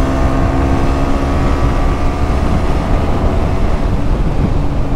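KTM 125 Duke's single-cylinder four-stroke engine running through a LeoVince exhaust with the dB killer removed, holding a steady pitch while cruising at about 90 km/h, with heavy wind rush on the microphone.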